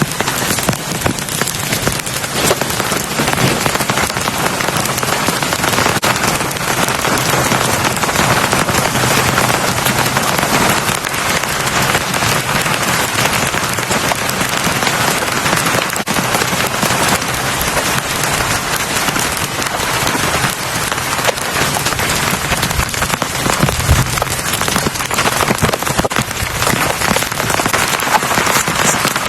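Heavy rain falling steadily, a dense patter of drops, with a brief low thud about four-fifths of the way through.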